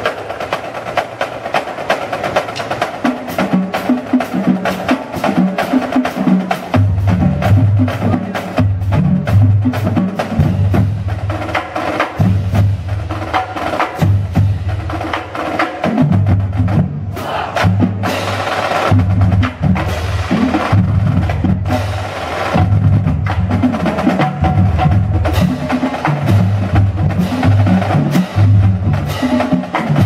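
Marching drumline of snare drums, tenor drums and bass drums playing a cadence, with crisp rhythmic snare strokes and rolls. The bass drums come in strongly about seven seconds in. About two-thirds of the way through, one cadence ends and the next begins.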